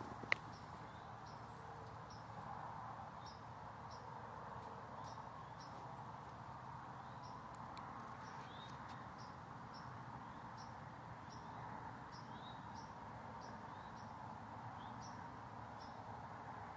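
Faint outdoor ambience: short high chirps from small animals repeat every half second to a second over a steady low hiss, with one sharp click just after the start.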